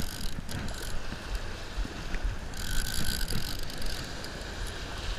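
Wind buffeting the microphone over the wash of small surf breaking on the beach, the hiss of the water swelling about halfway through, with a few faint clicks from a conventional fishing reel being handled.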